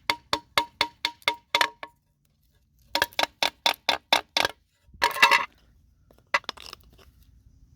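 Cast aluminum mailbox door being banged repeatedly against concrete in quick runs of about five sharp knocks a second, each knock ringing briefly, with a short rattle midway: a strength test of the crack just repaired with super glue and baking soda.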